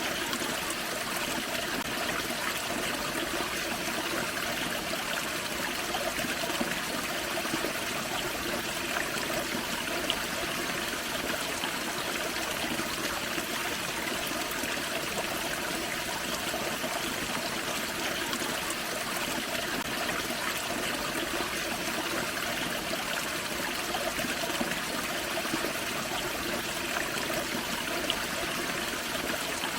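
Small forest waterfall and creek water splashing and trickling steadily, an even rushing without breaks.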